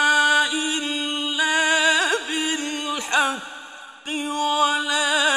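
A man reciting the Quran in the melodic mujawwad style, holding long notes and winding through ornamented vocal turns, with a short break just before four seconds in.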